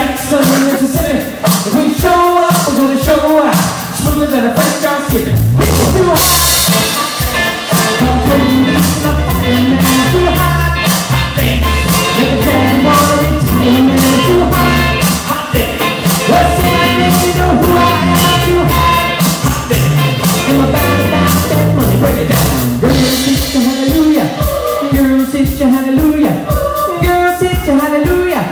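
Live rock band playing, with electric guitars, drums and singing. About six seconds in the full band comes in with heavy bass and a cymbal crash.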